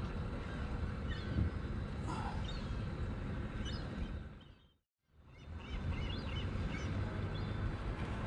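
Outdoor ambience: small birds chirping over a steady low rumble. The sound fades out to silence about halfway through and fades back in.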